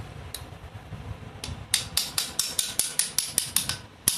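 Pliers tapping a round plug into its bore in a motorcycle cylinder head, seating it. There is one click near the start, then a quick run of sharp metallic taps, about five a second, from about a second and a half in.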